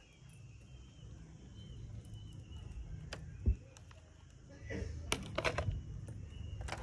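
Outdoor ambience: low wind rumble on the microphone and a few faint bird chirps. There is a single thump about halfway through, then a cluster of sharp clicks and rattles as a plastic sign board is handled.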